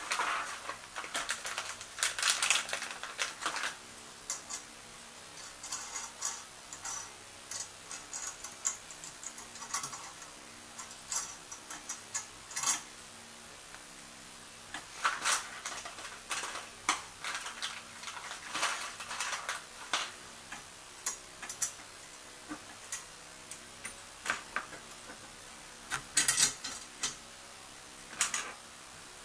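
Irregular small metallic clicks, clinks and handling noise as washers and nuts are fitted onto the threaded rods of an HHO generator's metal plate stack, with busier clusters about a second in, around the middle and near the end.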